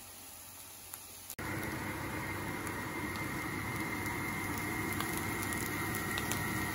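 Mince and onions frying in a pan on the hob: a steady sizzling hiss with small crackles, starting abruptly about a second and a half in, with a thin steady high whine over it.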